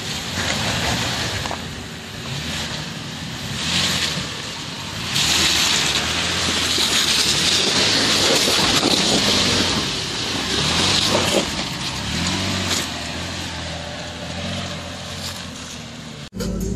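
A 2014 Toyota 4Runner's 4.0-litre V6 running under load as the SUV crawls up a steep, rutted dirt trail, its pitch rising and falling with the throttle, over the crunch of tyres on dirt and rock.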